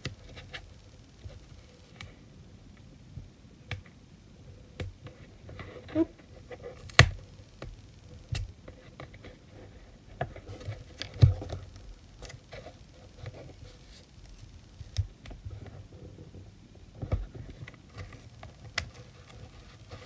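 Hands pressing and smoothing strips of gaffer tape onto a creased silver packaging cover: soft scattered rustles and crinkles with sharp taps and clicks, the loudest about seven and eleven seconds in.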